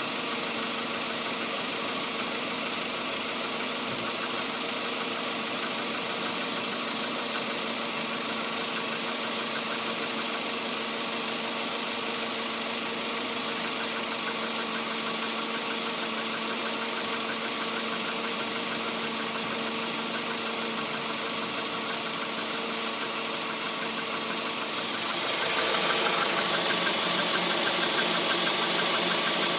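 Volkswagen Polo Sedan's CFNA 1.6-litre four-cylinder petrol engine running with a fast, steady knock (стук), the engine noise the owner is recording. It gets louder and brighter about 25 seconds in.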